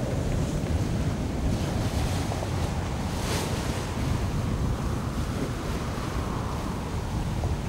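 Water rushing past the hull of a sailboat under way, with wind buffeting the microphone; a brief louder hiss of water comes about three seconds in.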